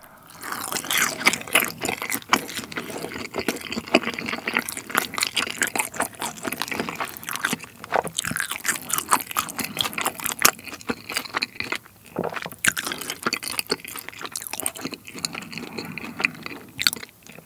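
Close-miked chewing of a mouthful of boneless yangnyeom (sauced Korean fried chicken): a dense run of small, irregular crackles and wet clicks that stops shortly before the end.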